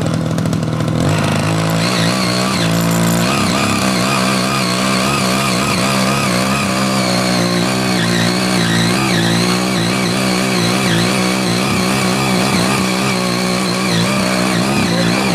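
Ching Yee CY80 power tiller's 5-horsepower engine running under load as its eight rotary tilling blades churn soil. The engine picks up speed a second or two in, then runs steadily with a high, wavering whine above it.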